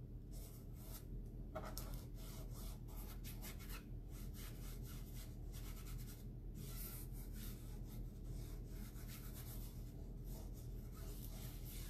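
Faint rubbing and light scratching of fingers pressing a sticky chalk-art transfer down onto a board, in many short, irregular strokes.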